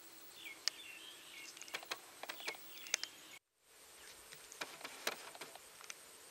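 Outdoor ambience of birds chirping and insects, with many scattered sharp clicks. The sound drops out completely for a moment a little past halfway.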